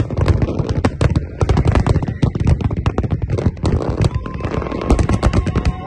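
Aerial fireworks going off in rapid succession, a dense run of bangs and crackles with hardly a pause.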